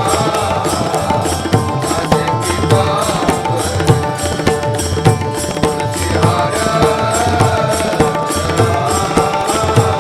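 Instrumental interlude of a Marathi devotional bhajan: a hand drum keeps the beat under a held, wavering melody line, with steady, evenly spaced metallic cymbal strikes.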